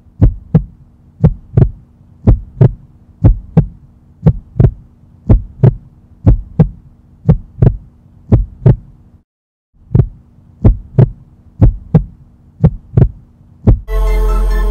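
Heartbeat sound effect: paired lub-dub thumps about once a second over a steady low hum, dropping out briefly about nine seconds in and then resuming.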